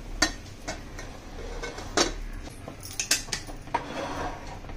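Stainless steel pressure cooker lid being fitted and closed onto the pot: a handful of sharp metal clinks and clacks, spread out over a few seconds.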